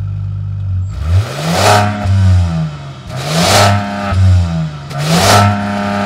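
Jeep Grand Wagoneer's Hurricane twin-turbo straight-six heard at the exhaust tip: it idles briefly, then is revved three times, each rev rising in pitch and falling back.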